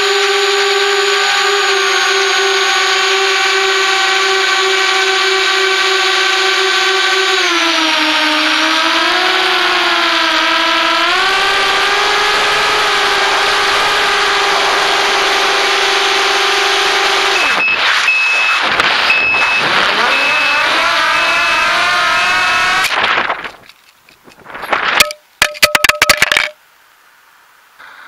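Bee180 mini FPV quadcopter's brushless motors and propellers whining steadily, as heard through its onboard camera, with the pitch dipping and wavering as the throttle changes. The whine cuts out abruptly about 23 seconds in, followed by a cluster of sharp knocks with brief motor spin-ups as the quad crashes and tumbles, a crash the uploader puts down to receiver range issues.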